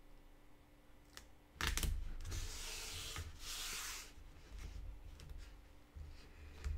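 A hand rubbing along paper tape to press it down over the edge of stretched watercolour paper on a board: a light tap, then a bump and two brushing rubs of about a second each.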